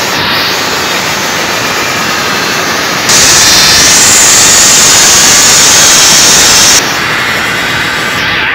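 Loud, steady rushing noise with no pitch or beat. It grows louder and brighter about three seconds in and drops back about four seconds later.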